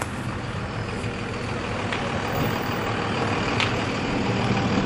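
A large vehicle's engine running steadily at idle, a low hum that grows a little louder near the end, with two faint clicks.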